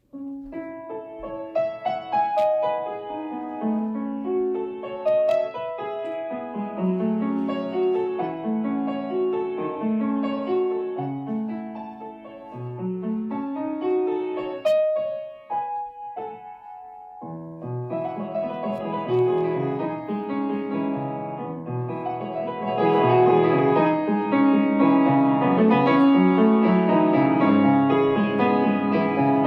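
Solo piano music: a melody of separate notes over a moving bass, thinning out briefly about halfway, then coming back fuller and louder.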